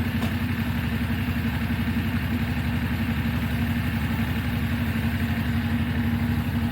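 Motorcycle engine idling steadily, an even fast putter with no change in speed.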